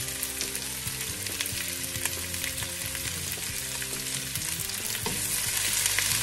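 Onion and bell pepper strips sizzling in hot oil in a frying pan, with a utensil stirring them and knocking against the pan in scattered clicks.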